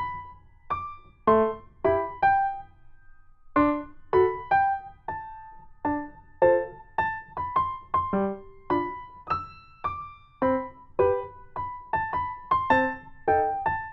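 Piano music: a slow tune of single struck notes that ring and fade, with a short pause about three seconds in.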